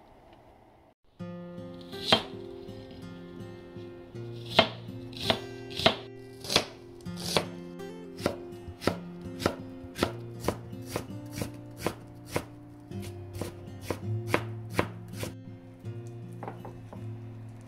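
Kitchen knife chopping onion on a wooden cutting board: sharp, regular strikes about two a second, stopping shortly before the end. Light background music plays under the strikes.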